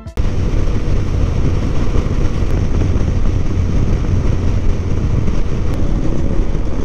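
Heavy wind buffeting on a helmet-mounted camera microphone while riding a motorcycle at highway speed: a steady low rumble with the bike's running noise beneath it.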